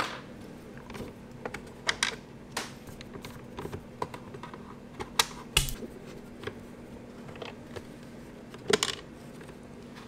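Scattered light clicks and taps of a screwdriver and hands on a plastic car side-mirror housing as its Phillips screws are backed out.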